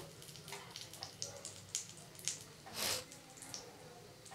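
Vegetable chops shallow-frying in oil in a frying pan: faint, scattered crackles and pops, with a brief louder sizzle and scrape about three seconds in as a chop is turned with a metal spatula.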